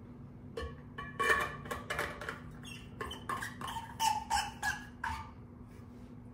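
A series of short clinks and squeaks, about a dozen in a few seconds, from kitchenware being handled and set down on a counter.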